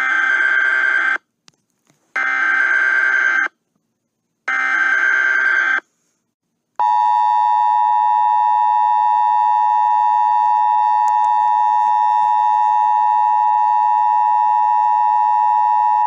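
Emergency Alert System signal: three buzzing digital data bursts of about a second each, a second apart (the SAME header). About seven seconds in, the steady two-tone attention signal starts and holds to the end.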